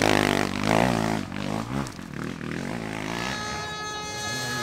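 Enduro dirt bike engine revving up and down several times in quick succession, then holding a steady high-revving note from about three seconds in.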